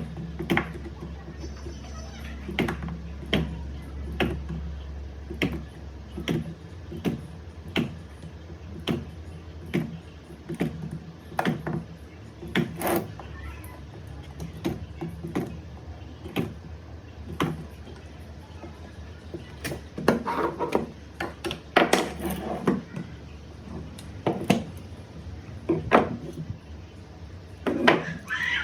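Battery spot welder firing on nickel strip over 18650 cells: sharp cracks, about one a second, over a low steady hum.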